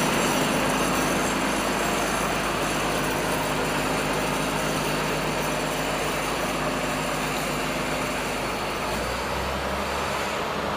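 Diesel engine of a Komatsu PC200-8MO excavator running steadily, slowly getting a little quieter, with a change in its low hum about nine seconds in.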